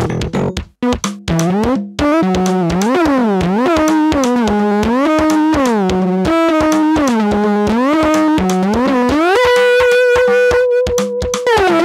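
Instrumental music: a synthesizer melody whose notes slide up and down, over a quick steady beat. Near the end it settles into long held notes.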